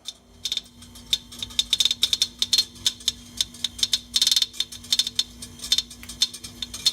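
Rapid, irregular clicking from an LG refrigerator's compressor, several clicks a second with denser runs about four seconds in and near the end, over a steady low hum. The owner takes this clicking for the sign of a dead compressor.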